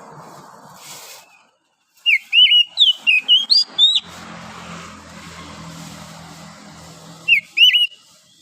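Oriental magpie-robin singing: a run of loud, quick slurred whistles lasting about two seconds, then a second short phrase near the end.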